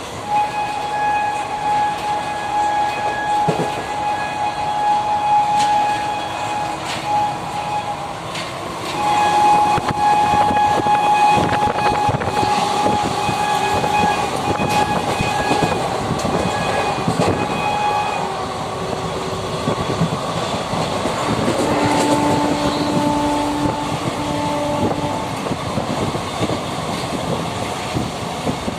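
Train running on the rails with wheel clatter, its horn sounding in two long steady blasts of about eight and nine seconds, then a shorter, lower horn of about three seconds.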